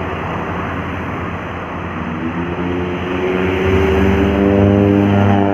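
Large bus's diesel engine drawing near and passing over steady road traffic noise, its drone growing louder and rising slightly in pitch from about two seconds in.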